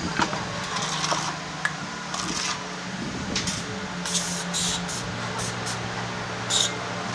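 Workshop sounds: a steady low machine hum, with scattered metal clicks and several short hissing bursts.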